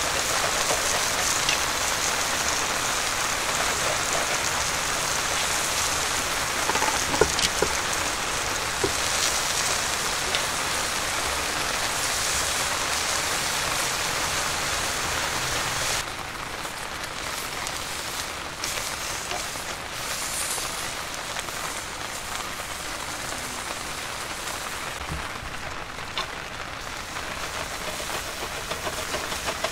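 Heavy rain falling, a steady hiss that drops suddenly in level about halfway through, with a few sharp clicks of metal tongs against the grill grate about a quarter of the way in.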